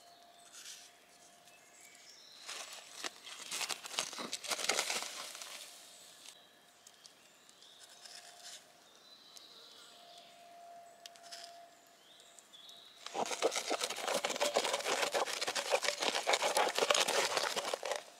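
Creamy sauce bubbling and sizzling in a frying pan over embers, heard as dense crackling in two stretches: a shorter one about three seconds in, and a longer, louder one from about thirteen seconds on.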